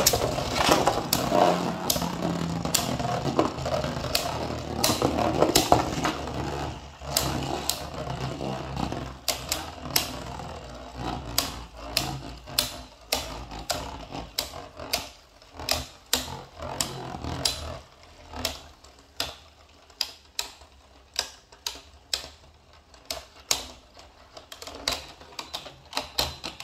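Two Beyblade spinning tops whirring on a plastic stadium floor, with sharp clacks as they hit each other and the stadium. The whirring fades after about 18 seconds, and the clacks go on, spaced out to one or two a second.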